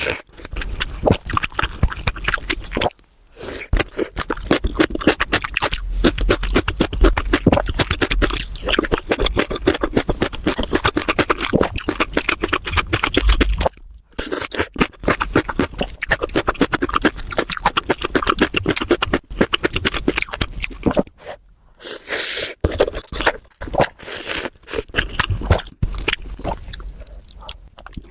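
Close-miked eating: rapid, continuous chewing and crunching in long runs, pausing briefly about three seconds in, around the middle, and again after about twenty seconds.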